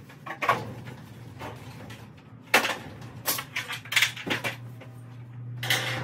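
A string of sharp knocks and clanks at irregular intervals, the loudest about two and a half seconds in, over a low steady hum that grows louder just after the middle.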